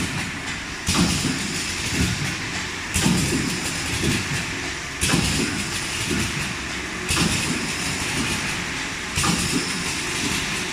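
VPD250-B four-side sealing wet wipes packing machine running its automatic cycle: a burst of hissing about every two seconds, with a knock about once a second, over a steady machine hum.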